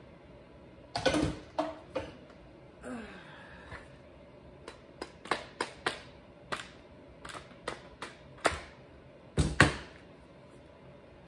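Irregular sharp clicks and knocks of hand tools and hard plastic chainsaw parts as the saw's housing is worked apart, the loudest about a second in and twice near the end.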